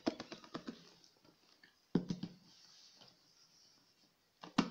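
Flour pouring out of a plastic tub onto a glazed earthenware dish: a faint soft hiss, with a quick run of ticks at the start and two sharp knocks, one about two seconds in and one near the end.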